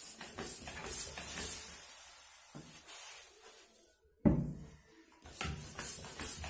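Hand air pump inflating a volleyball that has just been dosed with latex sealant: repeated pumping strokes with a hiss of air, and a loud knock about four seconds in.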